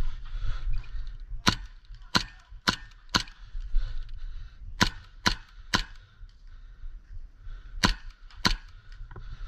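Airsoft guns firing single shots: sharp cracks in three quick strings, four, then three, then two.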